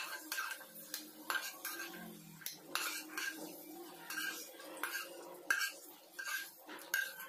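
A spatula scraping fried chutney ingredients out of a metal kadai into a small stainless steel bowl: a run of scrapes and clinks, several with a short metallic ring.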